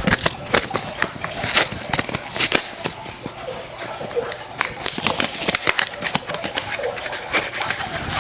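Rapid, irregular clicks, taps and rustles of hands handling seed-starting supplies, such as seed packets and plastic trays.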